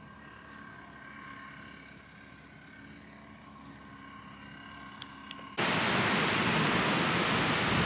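A faint, steady hum with a few held tones and two small clicks, then an abrupt cut to a loud, even rushing noise, like surf or wind outdoors, that runs on steadily.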